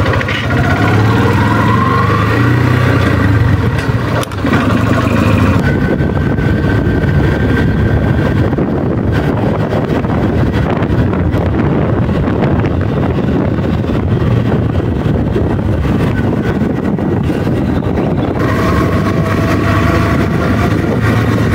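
Motorcycle engine running under way as the bike is ridden, its pitch rising as it picks up speed in the first couple of seconds, then running on steadily.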